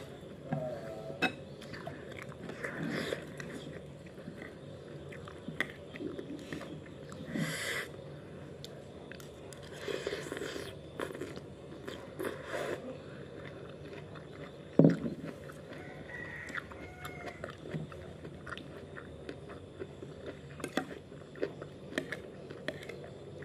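Close-up eating sounds: biting and chewing crunchy fried food, with a metal spoon clicking and scraping on a ceramic plate, one louder knock about fifteen seconds in.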